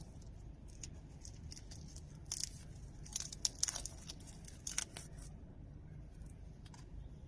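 Watch packaging being handled during unboxing: a run of short crinkles and clicks, clustered from about two to five seconds in, over a low steady hum.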